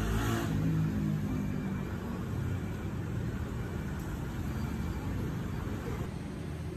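Street traffic rumbling steadily, with a motor vehicle's engine passing close by about a second in.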